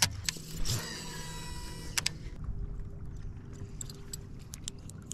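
Buzzbait's metal blade squeaking and clattering for about two seconds as the lure is brought in, ending with a sharp click. Then come scattered small metallic clicks as the lure is handled. It is the buzzbait's sound that the angler does not like and goes on to adjust.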